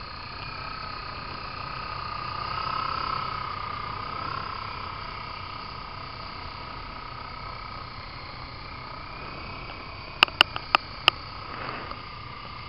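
Scale Hughes 500 R/C helicopter flying close by: a steady high whine that wavers slightly in pitch and gets louder for a couple of seconds early on as it comes nearer. A quick run of five sharp clicks comes about ten seconds in.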